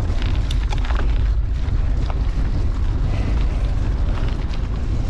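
Wind buffeting the microphone with a heavy low rumble, over a mountain bike's tyres crunching across a loose, stony track, with scattered sharp clicks and rattles.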